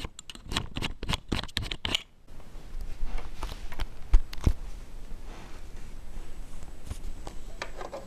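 Plastic clicks and rattles of a Commodore MPS 801 dot-matrix printer's cover being opened and the ribbon cassette being handled at the print-head carriage, dense in the first two seconds, then a couple of sharper knocks about four seconds in.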